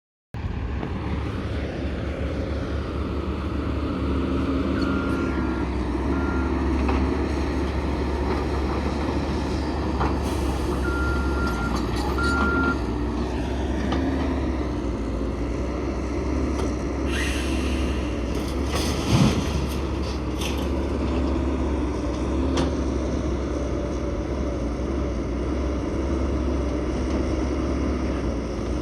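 Heavy diesel truck engine running steadily at a low rumble, with two short groups of electronic beeps early on the way and bursts of hiss about two thirds through.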